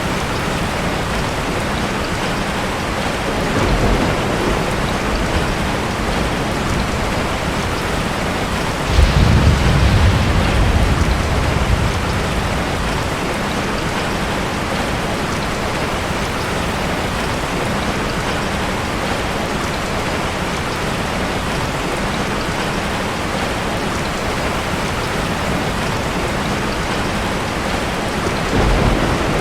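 Steady heavy rain with rolling thunder. A soft rumble comes about four seconds in, a louder one starts suddenly about nine seconds in and dies away over a few seconds, and another rumble comes near the end.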